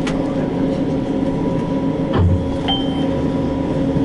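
Inside a tram standing at a stop: a steady hum from its onboard equipment. There is a click right at the start, a low thump about two seconds in, and a short high beep just after.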